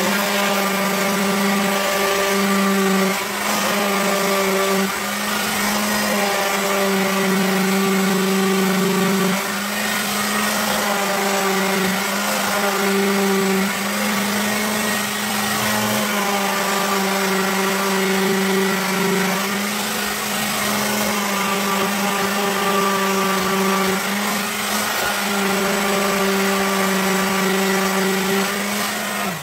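Electric hand sander running over the dried coat on an alloy wheel rim: a steady motor hum that dips briefly now and then as the tool is pressed and moved.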